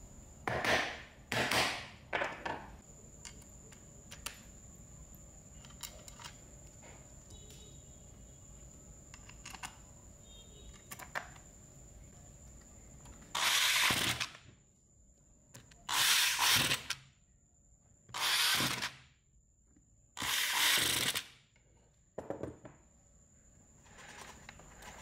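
Workshop handling of the metal gear housing of a Makita MUC400 electric chainsaw: three short scraping, rubbing bursts near the start, then four longer, louder ones about two seconds apart in the second half, with light ticks of parts in between.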